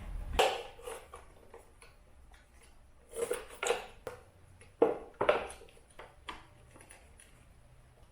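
Metal tools and parts clinking and knocking as they are handled: about half a dozen short, sharp clanks in small clusters, with quiet in between.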